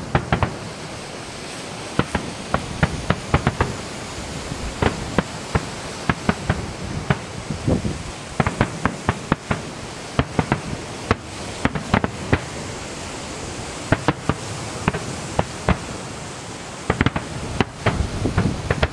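Fireworks display: a rapid, irregular run of sharp bangs and crackles, several a second, over a steady background hiss.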